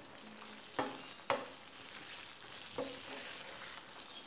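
Wooden spatula stirring chicken pieces through thick gravy in a frying pan, knocking against the pan three times, over a steady faint sizzle of the gravy cooking.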